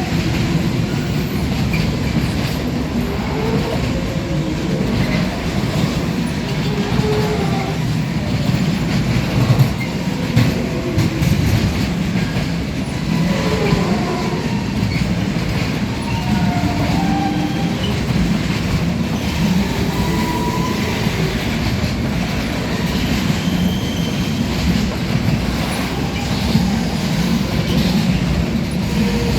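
Container freight train running through, its wheels rumbling steadily on the rails while short, wavering wheel squeals come and go at shifting pitches.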